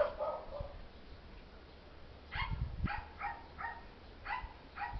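A dog barking: one bark at the start, then a run of short barks about two a second from about halfway through.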